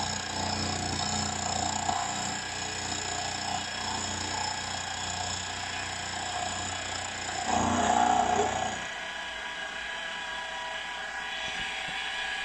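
Milling machine running with an end mill taking a sixteenth-of-an-inch cut across the face of a metal casting: a steady motor whine with cutting noise. It grows louder for a second or so about 8 s in, and the low hum drops away after that.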